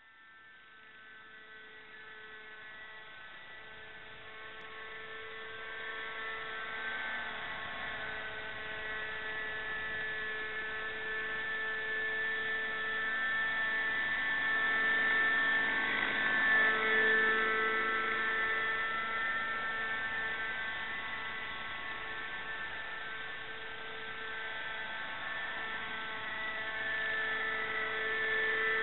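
Nitro glow engine of a radio-controlled MD530 scale helicopter running with a steady high-pitched whine, swelling louder over the first several seconds and loudest about halfway through.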